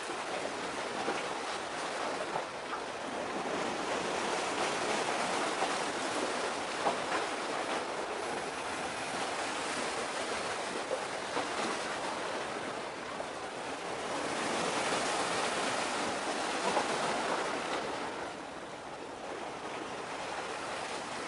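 Water washing against the harbour shore: a steady rushing hiss with no engine tone, swelling around the middle and easing for a moment near the end.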